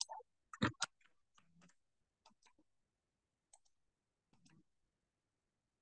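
Computer mouse buttons clicking: a quick cluster of three sharper clicks just under a second in, then fainter single and paired clicks scattered after it.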